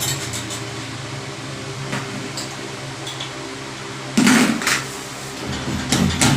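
Steady mechanical hum from a running machine, with a few louder clattering bursts about four seconds in and again near the end.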